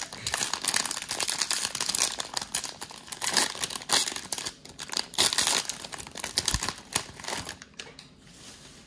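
Plastic cello wrapper of a trading-card pack being torn open and crinkled by hand: a dense run of crackles that dies down near the end.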